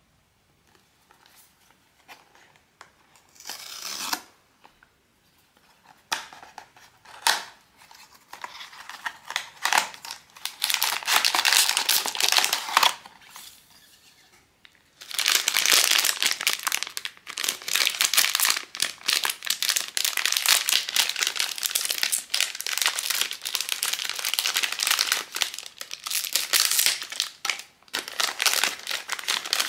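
Blind box packaging being opened by hand: wrapping being torn and crinkled. The first half has scattered short rustles and tears; after a brief pause the crinkling turns dense and almost continuous.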